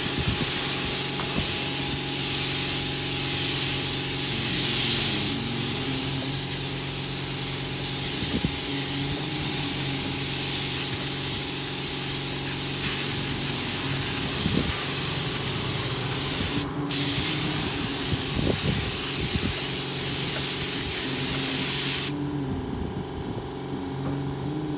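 Spray gun spraying paint onto plastic motorcycle body panels while the second coat is laid: a loud, steady hiss of air and atomised paint. It breaks off once for a moment past the middle and stops a couple of seconds before the end as the trigger is released. A steady mechanical hum runs underneath.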